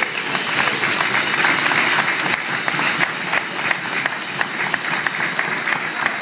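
Applause from a roomful of seated diners, many hands clapping at once.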